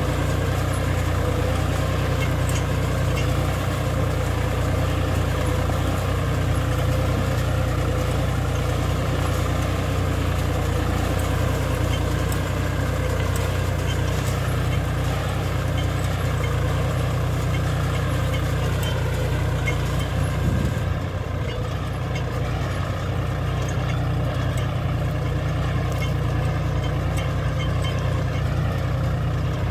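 John Deere 5105 tractor's three-cylinder diesel engine running steadily under load as it pulls a mouldboard plough through the soil.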